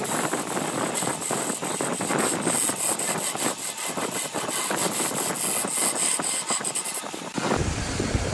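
Wood lathe spinning a vase-shaped turning while a turning tool cuts along it, a steady scraping hiss of shavings coming off. Near the end the sound changes and turns lower and fuller.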